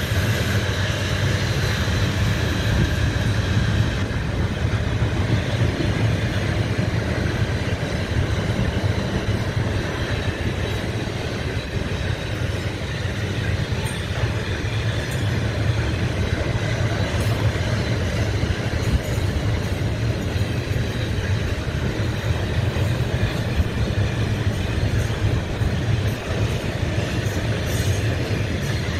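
Loaded double-deck car-transporter wagons of a long freight train rolling past: a steady rumble of steel wheels on the rails.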